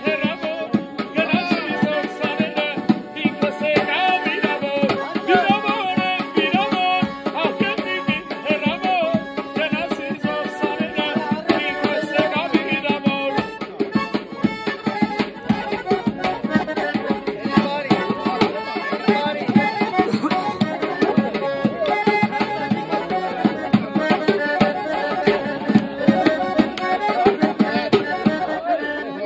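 Piano accordion playing a lively folk tune with held chords, accompanied by fast hand-drumming on a tabletop.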